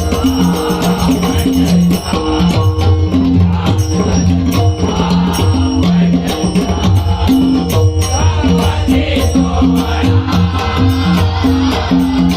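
Marathi devotional abhang music: an instrumental passage with rhythmic jingling hand percussion over a repeating low melodic pattern.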